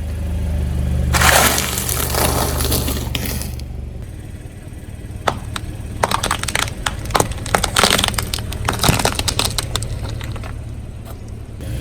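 Car tyre rolling over and crushing brittle objects: a low engine hum with a loud rushing burst about a second in, then a long run of crackling, snapping and crunching.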